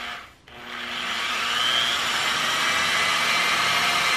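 Hand-held electric drill boring a hole through a painted wooden board. A short burst of the drill, a brief dip, then from about half a second in the drill runs steadily as the bit cuts through the wood.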